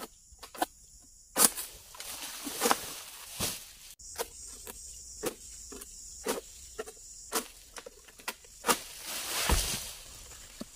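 Pole-mounted oil palm harvesting sickle (egrek) hooked into a palm crown and worked in short pulls: a string of sharp cracks and snaps with rustling of palm fronds, and a heavier rustling thump near the end.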